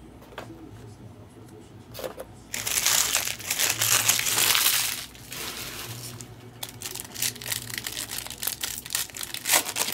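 Crinkly wrapper of a baseball card pack being torn open and crumpled, loudest in the middle, followed by lighter crinkling and the clicks of cards being handled.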